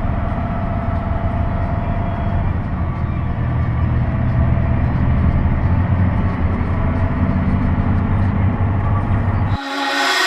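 Heavy diesel engine of farm harvest machinery running steadily, a deep hum with steady engine tones. The low rumble cuts out abruptly about nine and a half seconds in.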